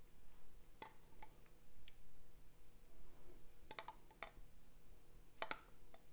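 A metal spoon clicking lightly against a glass jar as dressing is spooned out, about a dozen short scattered clicks with a few in quick clusters near four seconds and five and a half seconds in.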